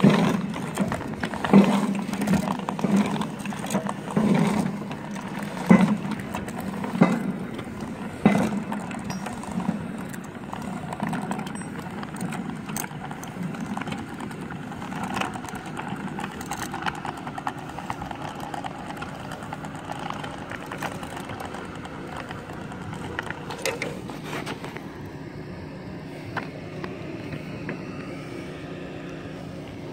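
Irregular knocks and scuffs against a steel water tower tank, thinning out after about ten seconds, over a steady mechanical drone.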